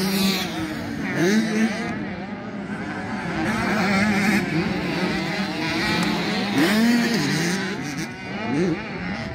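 Several motocross bikes racing around a dirt track, their engines overlapping and rising and falling in pitch as the riders accelerate and back off.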